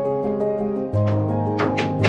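Background music: sustained keyboard notes, with a deep bass note coming in about a second in and percussion hits starting near the end.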